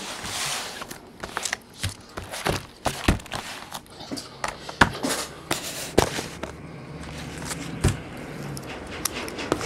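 Sealed cardboard trading-card boxes being set down and stacked on a tabletop: a scatter of light knocks and taps with some scraping, the sharpest about three, five, six and eight seconds in.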